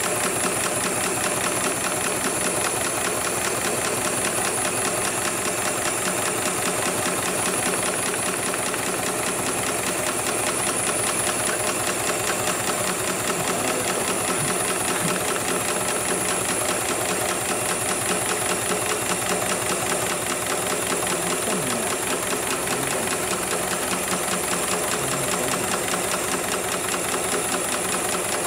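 HIGHTEX 7273 CNC automatic industrial pattern sewing machine running steadily, its needle stitching rapidly through nylon webbing as the work clamp feeds the strap, over a thin steady high tone.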